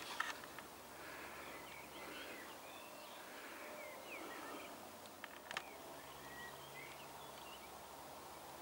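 Faint birdsong: several small birds chirping and whistling in short rising and falling notes over a soft background hiss. A few sharp clicks break in just after the start and again about five and a half seconds in.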